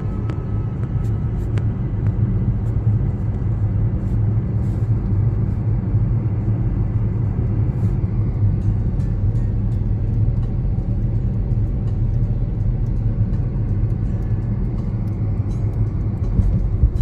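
Car driving, heard from inside the cabin: a steady low rumble of engine and road noise with a faint hiss above it.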